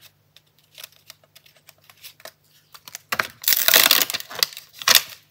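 Craft supplies being handled on a desk while getting ready to stamp: a run of light clicks and taps, then a louder rustle about three seconds in and another short one near the end.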